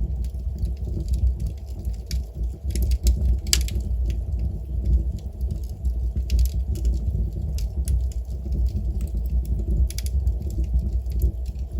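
Wood fire burning in a fireplace: irregular sharp crackles and pops, the loudest about three and a half seconds in, over a steady low rumble.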